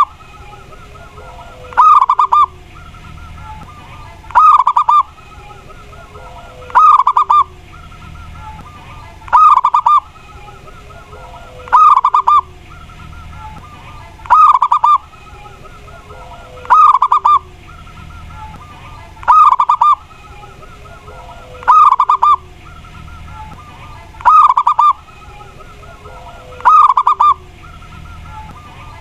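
Zebra dove (perkutut) cooing: a short burst of quick rolling notes repeated very regularly about every two and a half seconds.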